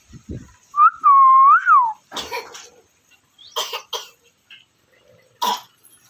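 Rose-ringed (Indian ringneck) parakeet giving a loud whistled call about a second in, its pitch dipping and then rising, followed by three short, harsh, rasping squawks.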